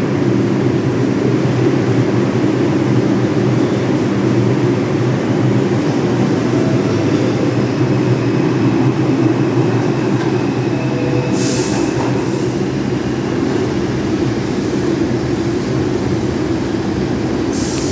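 R142 subway train pulling out of the station and passing close by, a loud steady rumble of wheels and motors that eases slightly as it leaves. A short high hiss comes about eleven and a half seconds in.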